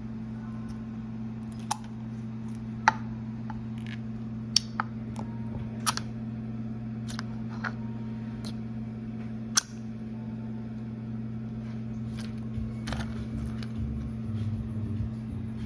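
Clear slime being played with by hand, giving about a dozen sharp, irregular clicks and pops, over a steady low hum.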